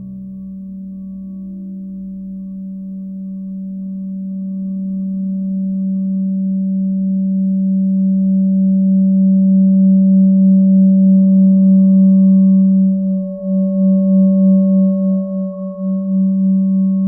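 Experimental drone music: a steady low, pure electronic tone with faint higher tones above it, slowly swelling louder, then wavering in an uneven pulsing beat for the last few seconds.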